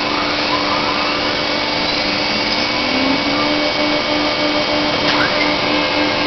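CNC router running: a steady, noisy machine whir with a low hum that starts pulsing evenly about halfway through, and faint tones sliding up and down in pitch.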